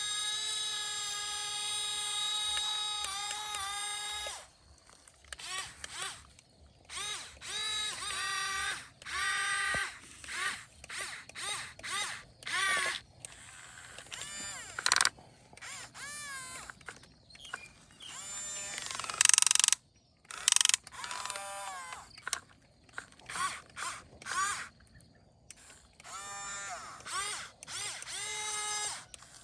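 Electric motors and gearboxes of a Yigong AGES6 remote-control excavator whining as its functions are worked. A steady whine for the first four seconds or so is followed by many short bursts that rise and fall in pitch as each movement starts and stops.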